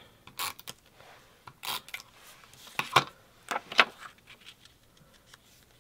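Paper handling while cardstock squares are stuck onto a scrapbook page: a few short rustles and taps as the pieces are moved and pressed into place.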